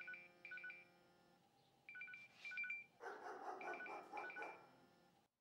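Faint LG mobile phone ringtone: short high electronic beeps repeating in pairs over a held tone, as an incoming call rings. A louder, rougher noisy sound joins from about three seconds in.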